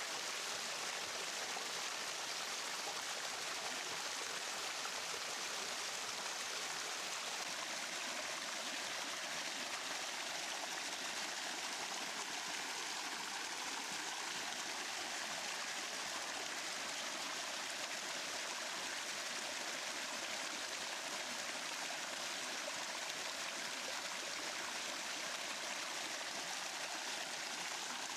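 Running stream water, a steady unbroken rush.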